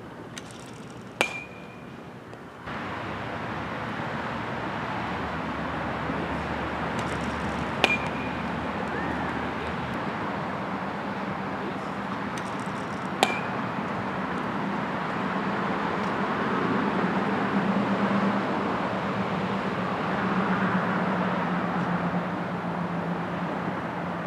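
A metal baseball bat hitting pitched balls three times, about six seconds apart, each hit a sharp ping with a brief ring, over a steady background rush.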